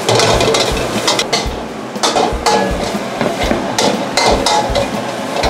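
A spatula scraping and knocking against a pan, a few strokes a second, as curry paste fries in oil with a light sizzle.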